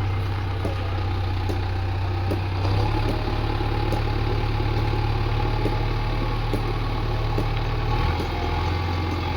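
Heavy diesel engine idling steadily, its low hum shifting slightly in pitch about three seconds in and again near the end.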